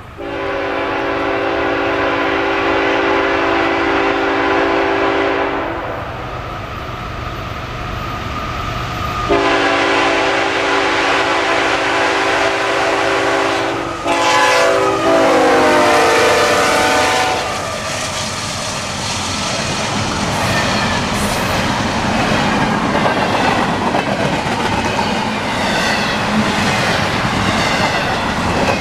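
CSX diesel freight locomotive's air horn sounding two long blasts, then a third whose pitch drops as the locomotive passes close by. After that, double-stack intermodal container cars rumble and clack past on the rails.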